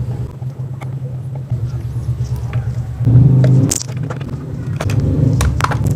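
Electric fan motor head being taken apart by hand: a screwdriver working the last screws, then the black plastic motor housing handled and pulled open, giving scattered clicks and knocks with a louder clatter about three seconds in. A steady low hum runs underneath.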